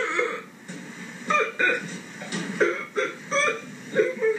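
A profoundly deaf woman's voice speaking in short, emotional bursts whose words are hard to make out, played back through a television speaker into a small room.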